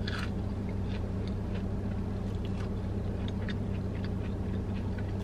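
Chewing a fried onion ring, with a crunch at the bite and then scattered small crunches and mouth clicks, over a steady low hum in the car cabin.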